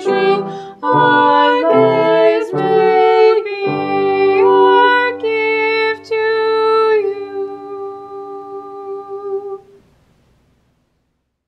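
Piano with a singing voice finishing the last line of a hymn. It ends on a long held chord that fades away about ten seconds in, leaving near silence.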